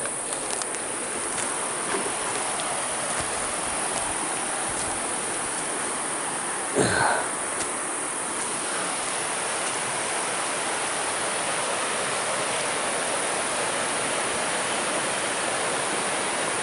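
Creek water flowing with a steady rushing hiss. A brief voice-like gliding sound comes about seven seconds in.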